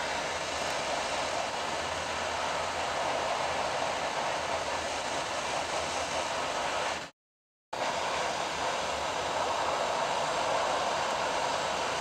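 Steady hiss of hot air blowing from the nozzle of a BAKU 858A hot air rework station, heating a surface-mount resistor on a circuit board to melt its solder and lift it off. The hiss cuts out completely for about half a second around seven seconds in.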